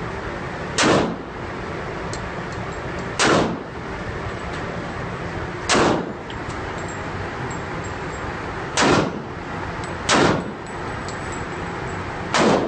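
1911 pistol fired six times in single shots, a few seconds apart, each shot a sharp crack with a short echoing tail, over a steady background noise.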